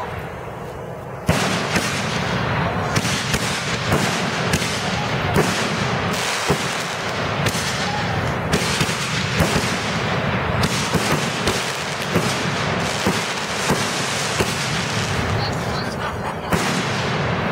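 Rack of 12 canister-shell fireworks firing in a rapid barrage. About a second in, shells begin launching and bursting one after another, sharp bangs over a continuous dense noise, and the barrage dies down near the end.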